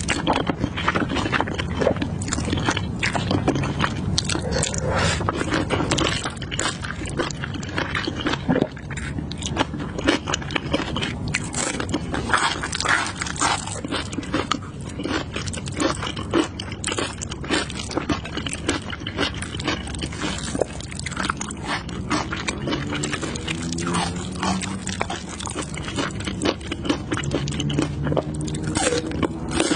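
A person eating saucy instant noodles: chewing and slurping, with many wet mouth clicks and smacks.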